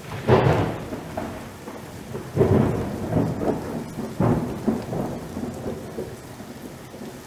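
Thunder over steady rain: three loud claps about two seconds apart, each rolling off slowly, with the rain hissing throughout.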